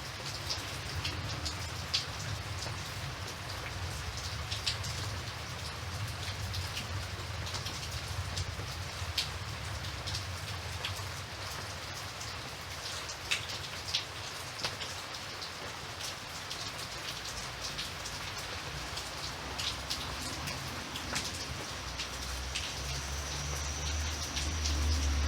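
Steady rain pattering on a surface, with scattered individual drops ticking sharply. A low rumble runs underneath and grows louder near the end.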